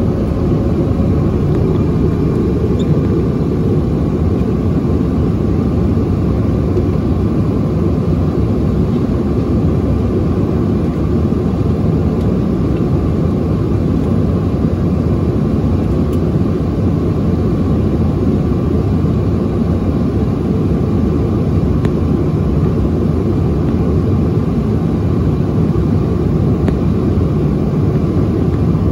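Steady cabin noise of a Bombardier CRJ-900 airliner in flight: a constant low rush of airflow with the hum of its rear-mounted turbofan engines and a faint steady whine.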